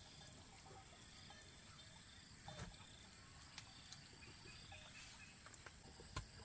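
Near silence: a faint outdoor background with a steady high insect drone and a few soft, scattered knocks.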